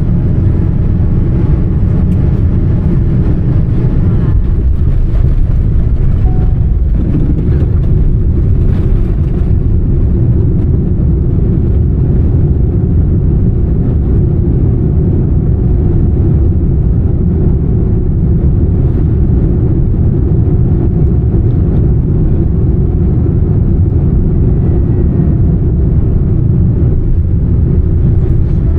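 Loud, steady low rumble of jet engines and rushing air inside the cabin of a Boeing 787-10 during its landing at night.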